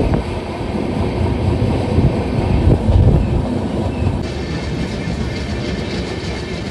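Passenger train running at speed, heard from an open coach doorway: a steady rumble of wheels on the rails with some clickety-clack. About four seconds in, a brighter rushing hiss joins as another train runs alongside on the next track.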